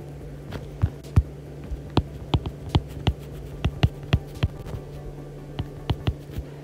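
Stylus tip tapping and clicking on a tablet's glass screen during handwriting: short, sharp taps at an irregular two or three a second, over a steady low hum.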